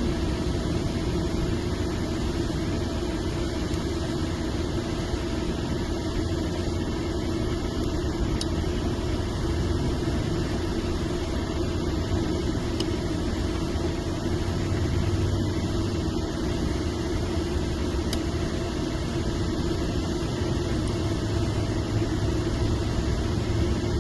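Steady mechanical hum, like a running engine, with a few faint small ticks about 8, 13 and 18 seconds in.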